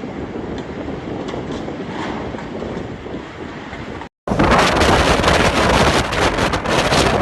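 Typhoon wind blowing hard, buffeting the microphone. About four seconds in the sound drops out for an instant, then returns much louder, with a heavy low rumble of gusts.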